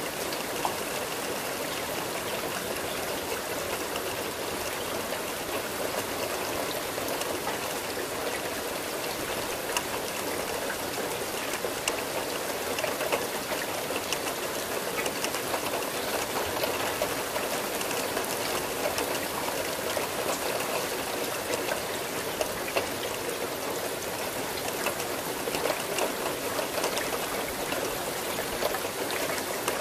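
Steady rain falling: an even hiss of water dotted with many small drop clicks, unchanging throughout.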